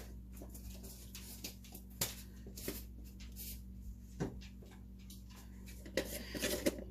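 Light clicks and knocks of supplement containers and utensils being handled, single ones a second or two apart, then a quick run of rattling clicks near the end.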